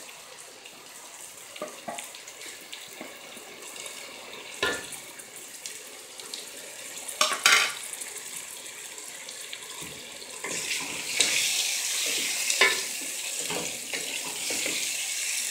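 Chopped onions, tomatoes and green chillies frying in oil in a steel pot: a steady sizzle that grows louder about ten seconds in. A wooden spoon stirs the pan, with a few knocks against the pot.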